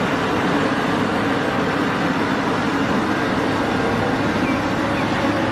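Caterpillar 6015B hydraulic mining excavator's diesel engine running steadily under load, a constant low drone with machinery noise.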